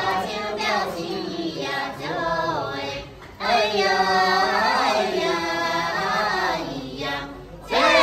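Group of Dong women singing a toasting song together in chorus, with long held notes and a short break about three seconds in.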